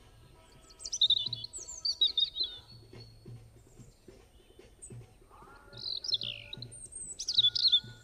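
Birds chirping and twittering in three short bouts of quick, high phrases: about a second in, around five to six seconds, and near the end. Faint background music runs underneath.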